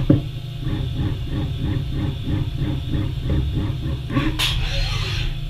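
Haas VF2 CNC mill broaching 6061-T6 aluminium with a square HSS toolbit: the Z axis strokes the locked spindle up and down about four times a second, over a steady low machine hum. A sharp click comes at the start, and a short rushing hiss comes about four seconds in.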